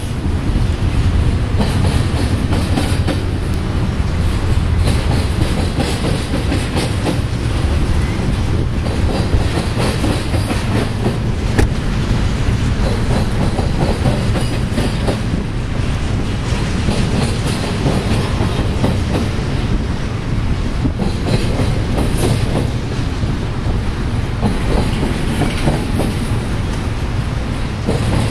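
Double-stack container cars of a Union Pacific intermodal freight train rolling past: a steady rumble of steel wheels on rail with a running clickety-clack of wheel clicks.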